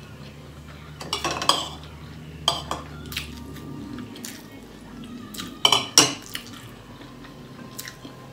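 Metal spoon clinking and scraping against ceramic bowls during eating, with scattered sharp clinks and the loudest pair about six seconds in.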